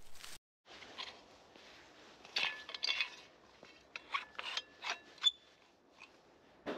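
Folding steel shovel being unfolded: metal parts scrape and clink against each other as the hinge is turned and locked, with a short metallic ring about five seconds in.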